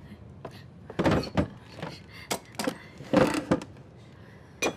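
About half a dozen separate knocks and thuds of wooden boxes and baggage being handled and set down, the two heaviest about a second in and past the three-second mark, with a sharp click near the end.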